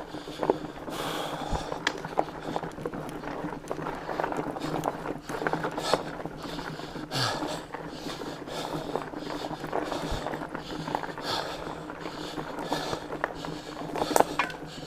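Heavy breathing of a worn-out cyclist climbing on a fat bike, over continuous tyre noise on a dirt trail and scattered clicks and knocks from the bike.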